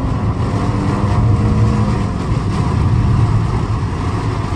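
Heavy rain and wind from a rain-wrapped tornado's outer bands lashing a car, heard from inside the cabin as a loud, steady rush over a low rumble.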